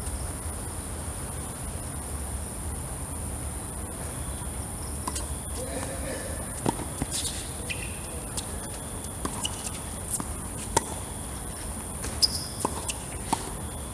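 Tennis rally: sharp pops of racket strikes and ball bounces on the hard court, about nine in the second half. A steady high-pitched chirring of night insects runs underneath.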